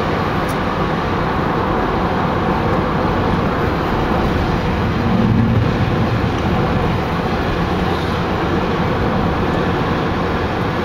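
Steady road and engine noise heard inside a car cruising on a highway, with a slight swell in the low rumble about halfway through.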